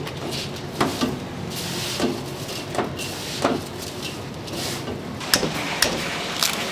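Kitchen work: gloved hands mixing cooked rice in a large stainless-steel bowl, with irregular knocks and clinks against the metal, about seven in all, over a steady background noise.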